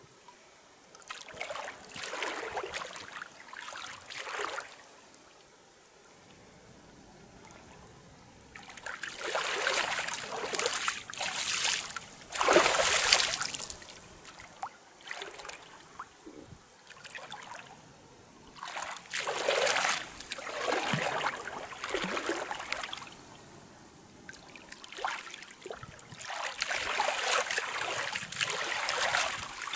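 Water splashing and sloshing as a person wades waist-deep and splashes the water with her hands, in four bursts of a few seconds each with quieter gaps between.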